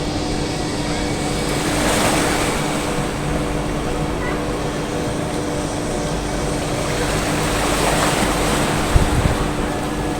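Steady machine hum holding one constant low tone, over a rushing outdoor noise that swells about two seconds in and again near eight seconds.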